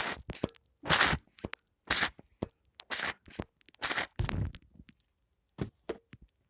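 Foam handled and squeezed close to the microphone for ASMR, in short irregular bursts of noise about once a second with quiet gaps between.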